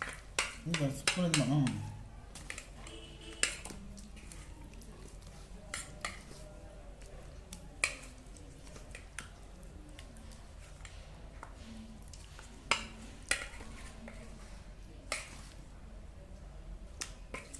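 Scattered clinks and taps of a bowl and utensil, about one every second or two, as chicken pieces are mixed by hand into kabab masala. A voice sounds briefly at the start.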